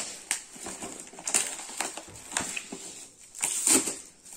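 Shiny red metallic gift wrap being torn open and crumpled by hand: a run of irregular crackling rips, the loudest a little after three seconds in.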